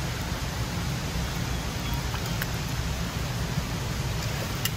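Steady rushing of flowing river water, an even hiss with a low rumble underneath, with a couple of faint clicks near the end.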